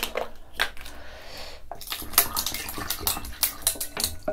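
A plastic water bottle is twisted open with a few clicks. Then, from about two seconds in, water is poured from it into a bowl of ice cubes, splashing with a dense run of small clicks.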